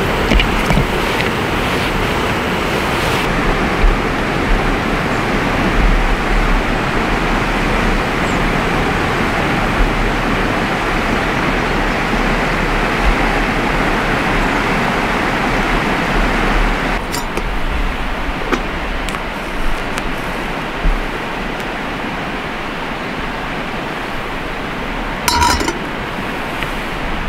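A river rushing steadily, an even roar of flowing water. Near the end comes a brief light clink.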